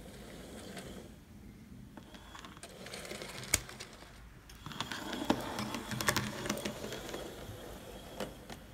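Hornby OO-gauge Peckett W4 model locomotive running along the track with its wagons: a light mechanical whirr with rapid clicking and clattering, busiest and loudest in the second half, with a few sharp clicks standing out.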